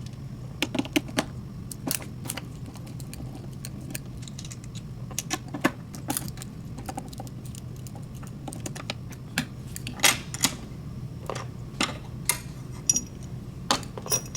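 Irregular metallic clicks and clinks of screws being backed out with a T30 Torx driver and set down while a seat's backrest adapter plate is taken apart, over a steady low hum.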